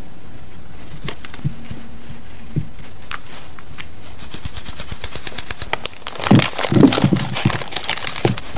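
Steady hiss with a few faint taps, then about six seconds in, baking parchment crinkling and rustling as cut chocolate squares are slid off it into a glass bowl, with soft thuds of the pieces dropping in.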